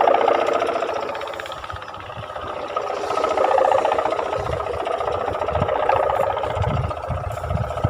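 Kite hummers (sendaren) droning in the wind with a rasping, snoring-like buzz; the drone fades about two seconds in and swells back. Wind gusts buffet the microphone.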